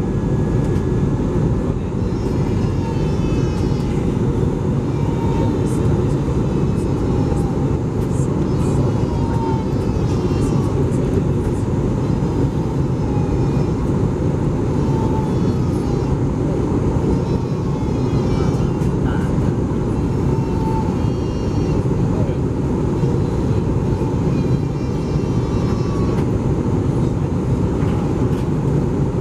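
Airbus A320 cabin noise on descent: a steady rush of engine and airflow heard from a passenger seat.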